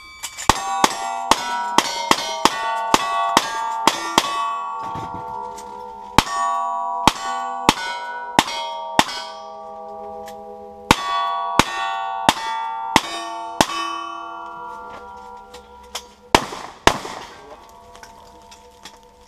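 A string of gunshots at steel targets, each shot followed by a steel plate ringing on. A fast run of over a dozen comes first, then two slower groups of five, then a last pair.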